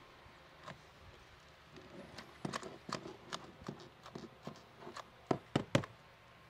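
Hot glue gun being worked along a stair nose: a scattering of light clicks and taps, with a few sharper knocks about five seconds in.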